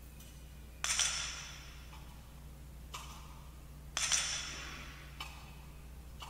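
Altar bells rung at the elevation of the chalice after the consecration: two clear rings about three seconds apart, each shimmering and fading over about a second, with fainter strikes in between.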